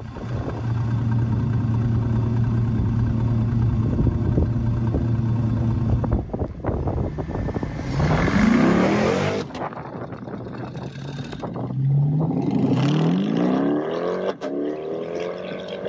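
A 1956 Chevrolet 3100 pickup's engine running at a steady pitch, then accelerating twice with the pitch rising, about eight seconds in and again about twelve seconds in.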